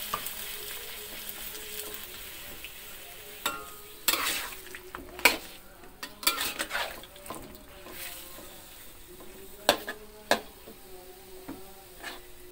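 Metal spatula stirring vegetables in a metal wok, scraping and knocking against the pan several times at irregular moments. Under it, a low sizzle from the pan dies away over the first couple of seconds.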